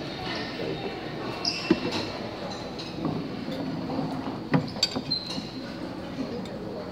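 Buffet dining-room din with indistinct background chatter, broken by a few sharp clinks of a metal serving spoon against a plate, the loudest about two seconds in and again around four and a half seconds.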